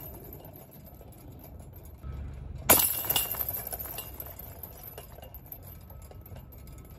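A disc golf disc strikes the hanging steel chains of a basket about three seconds in, setting them clinking and jangling; the ringing fades over a second or so as the disc drops into the basket.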